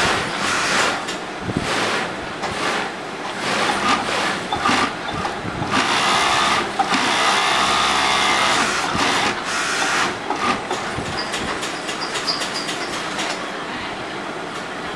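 Industrial sewing machine stitching knit polo-shirt fabric, running in short bursts and then in one longer steady run from about six to nine seconds in, with the hum of machinery behind it.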